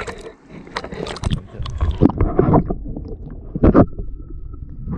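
River water splashing and sloshing as a landing net and camera are pushed into the water, with a loud splash a little before the end. After it the sound goes muffled, as if underwater, with a faint steady whine.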